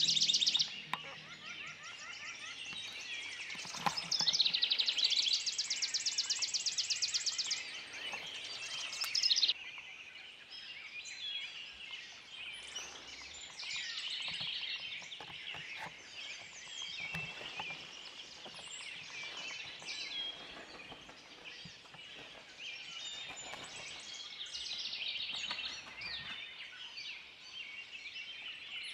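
Outdoor birdsong chorus of many small birds calling high and overlapping. One loud, rapid trill runs for about three seconds starting about four seconds in, and there is a short louder call near ten seconds.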